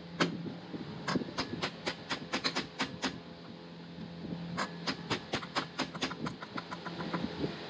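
Rapid light hammer taps on metal, about five a second, driving a valve guide into a cast-iron cylinder head. The taps come in two runs, pausing for about a second and a half a little past the middle.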